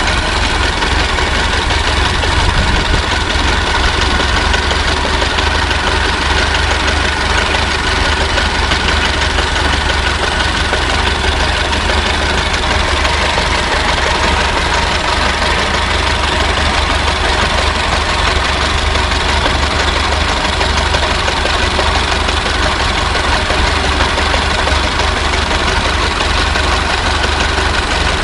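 Old car engine idling steadily, with a low, even running sound that holds without revving.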